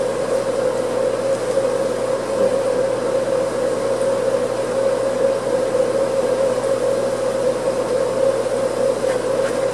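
Steady machine hum with an even hiss under it, holding one pitch with no change.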